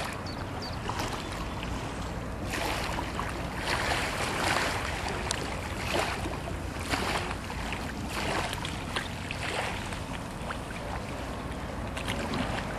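Wind on the microphone with estuary water lapping close by, a steady rush with a low rumble that swells and eases every second or so.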